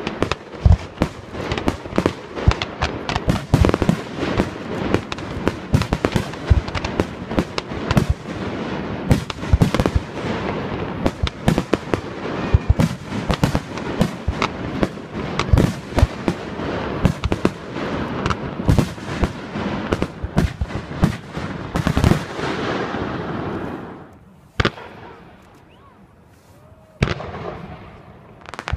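Large professional fireworks display: rapid, overlapping bangs and crackling from shells launching and bursting. The firing thins to a lull about 24 seconds in, broken by a single bang, and picks up again just before the end.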